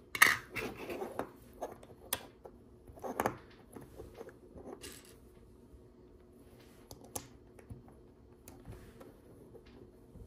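Small plastic LEGO pieces rattling and clicking as they are handled and pressed together, with a short clattering rummage near the start and scattered sharper clicks after.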